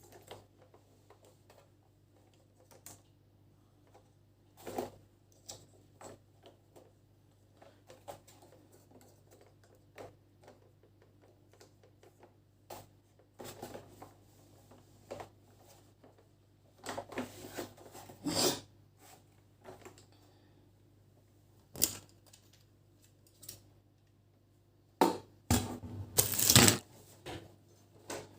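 Scattered clicks, taps and rattles of ring light parts being handled and fitted together during assembly, with busier handling about two-thirds of the way in and the loudest knocks and rustling near the end.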